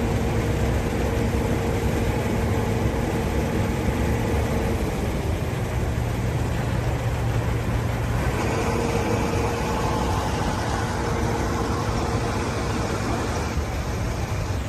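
A motor vehicle's engine running steadily, a low rumble with a hum that fades about five seconds in and returns a few seconds later.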